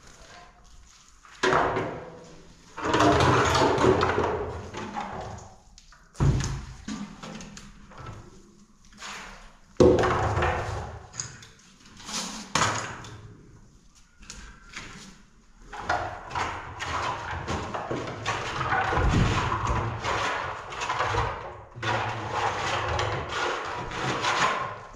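Hand plastering work: trowels and hands scraping and knocking as plaster is mixed and spread on a concrete-block wall. There are sudden thuds at about a second and a half, six and ten seconds in, each followed by a few seconds of rasping scraping, and the scraping grows busier in the second half.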